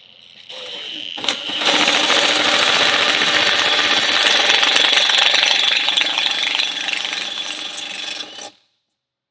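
A power tool runs steadily for about seven seconds, tightening the exhaust's clamp fasteners, then stops abruptly.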